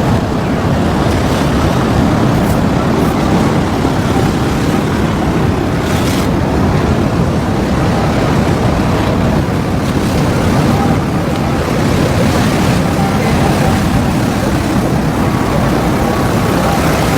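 Steady noise of sea surf mixed with wind buffeting the microphone.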